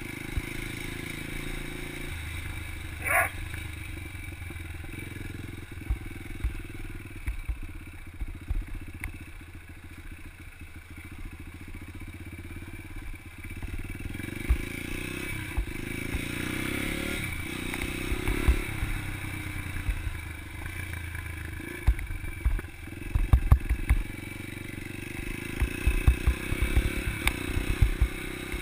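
Yamaha TT-R125 dirt bike's single-cylinder four-stroke engine running steadily, with knocks and clatter that come thickest in the last six seconds or so. A Doberman pup barks once about three seconds in.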